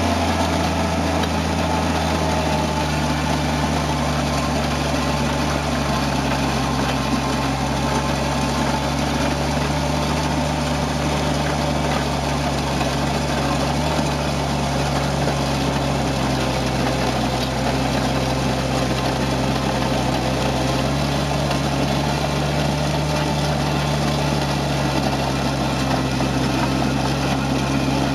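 Toro Dingo compact utility loader's engine running steadily under load, with the Harley power rake's rotating drum churning and scraping through loose gravel.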